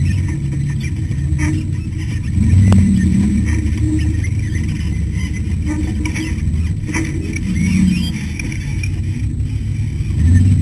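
Ultra4 rock-racing car's engine running hard, revs rising and falling with the throttle, heard from inside the cockpit. A few sharp knocks come from the chassis over rough ground.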